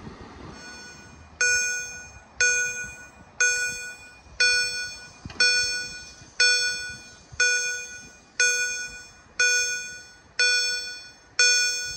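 Level-crossing warning bell striking about once a second, each ding ringing out and fading before the next. It is the crossing's signal warning road users that the crossing is closing or closed for a train.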